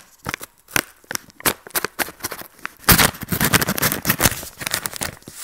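A knife cutting open a paper postal package: a quick run of sharp scrapes and crackles, then from about three seconds in a louder, denser stretch of tearing and crinkling as the packaging comes apart.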